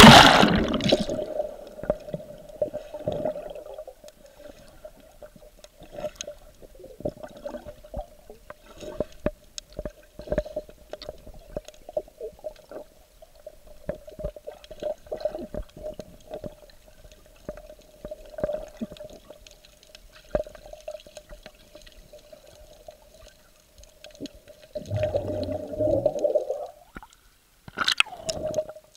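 Water heard through a waterproof action-camera case carried underwater: muffled water movement with scattered clicks and knocks against the case over a steady hum. There is a loud rush at the very start, a louder stretch of churning water near the end, and a brief splash as the camera comes up at the surface.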